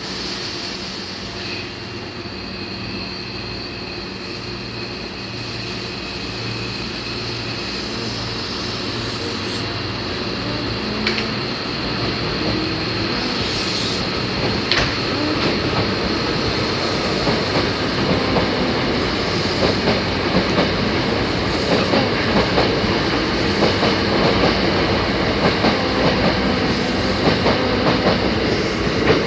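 Hankyu 8000 series electric train pulling out of a station and accelerating. Its motor tones step upward in pitch and grow louder, with a high steady whine, and in the second half the wheels click quickly over the rail joints.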